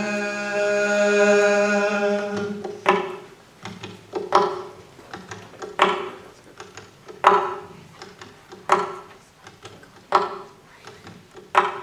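A man's voice holds a sung note for about two and a half seconds, then an acoustic guitar carries on alone, with a sharp percussive accent about every second and a half over ringing strings.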